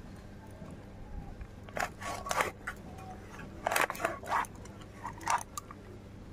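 A whole dressed chicken being cut apart on a boti, the upright curved kitchen blade held underfoot: crunching and cracking as the blade goes through skin and joints, in three short bursts about two, four and five seconds in.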